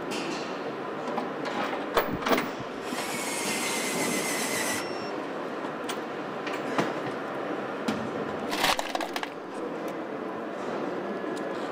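Car assembly-line noise: a steady background din with scattered metallic clicks and knocks, and a hissing tool whir lasting about two seconds, starting around three seconds in.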